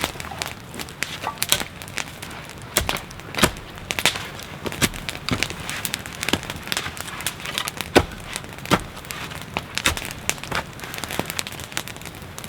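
Wood fire crackling, with irregular sharp pops and snaps over a steady hiss.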